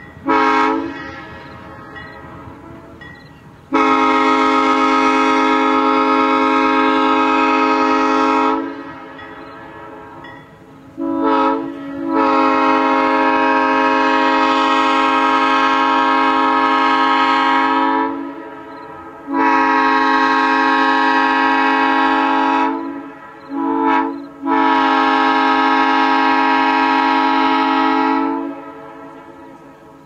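A locomotive air horn sounds a loud, many-note chord in separate blasts. A brief toot and one long blast come first, then the long, long, short, long pattern of the grade-crossing signal, which means the train is approaching a road crossing.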